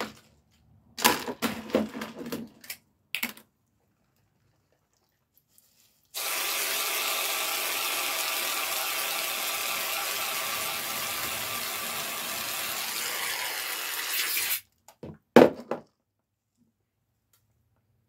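Aerosol can of whipped cream spraying: a steady hiss lasting about eight seconds as the cream is piled onto a drink. A few short noises come before it, and a couple of sharp ones just after it stops.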